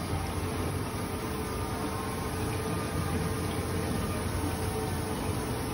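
Koi tank's water pump and filtration running steadily: a constant hum with water churning.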